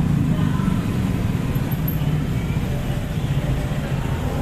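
Traffic in a jam: the engines of a van and cars stopped close by idling, a steady low hum.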